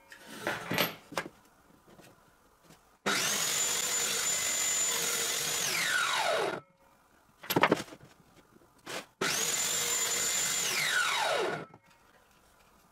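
Table saw running in two short bursts, each a few seconds long, taking thin trimming passes to widen a slot in plywood. Each time, the blade's whine falls away as the saw is switched off and spins down. In between come a few light knocks as the plywood and aluminium pieces are handled and test-fitted.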